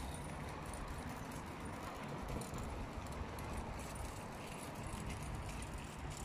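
Steady rumble of road traffic crossing the concrete road bridge, an even noise with no distinct events.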